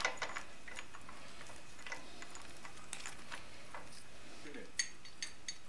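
Motorcycle 428 roller chain being fed by hand around the front sprocket, its links clicking against each other and the sprocket teeth: scattered light metallic ticks, with a quicker run of several near the end.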